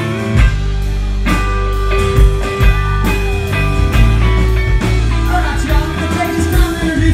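Live country-rock band playing: electric guitar and drum kit with acoustic guitar, and singing in places.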